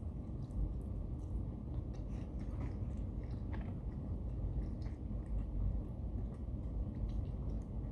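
A person chewing food, with faint scattered mouth clicks, over a steady low hum.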